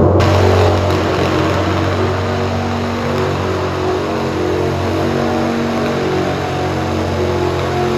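Diesel engine of a pulling pickup truck running steadily while hitched to the weight sled, waiting to start its pull.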